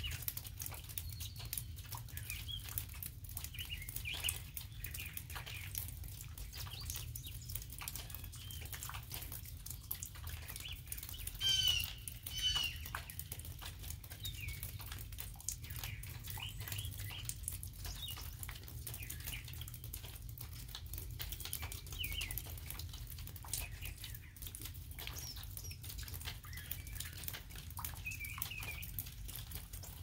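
Light rain pattering and dripping on twigs and leaf litter, with small birds singing in short, scattered phrases. The birdsong is loudest about twelve seconds in. A steady low rumble runs underneath.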